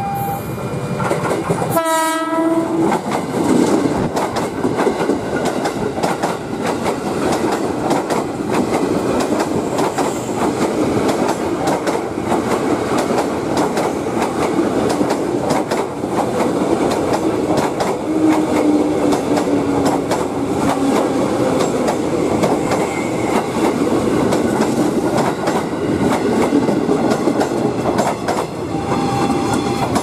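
KRL electric commuter train gives one short horn blast about two seconds in. It then runs close past at speed, a steady loud rush of wheels on rail with clickety-clack.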